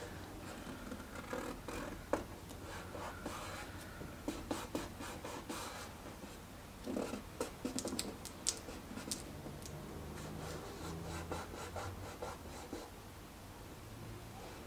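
Fingertips rubbing and pressing vinyl tint film onto a Dodge Challenger's plastic taillight lens, stretching it into shape. The sound is a faint scratchy rubbing with scattered small clicks and crackles.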